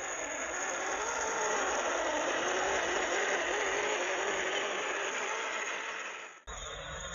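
Electric motor and gearbox of a small MN-series 1/12 scale RC crawler whining as it drives over dry grass and cut stalks, with the crackle and hiss of its tyres. The sound grows louder as the truck approaches, is loudest as it passes close by, eases off as it drives away, and cuts off abruptly near the end.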